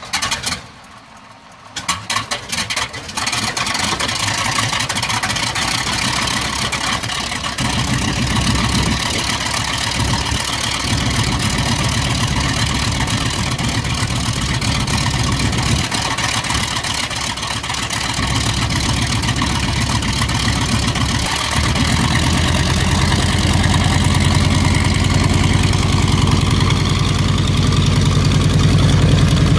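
Grumman TBF Avenger's Wright R-2600 fourteen-cylinder twin-row radial engine starting from cold: it fires unevenly for a couple of seconds about two seconds in, catches and settles into a steady idle. About three quarters of the way through it picks up speed and runs louder.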